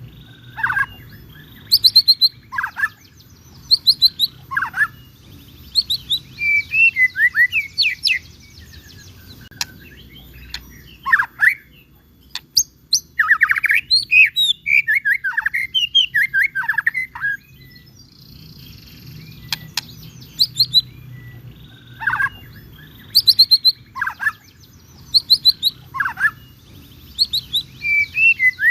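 White-rumped shama (murai batu) singing in full voice: short phrases of clear whistles and quick sweeping, rattling notes repeated every second or two, with a longer, denser run of notes in the middle.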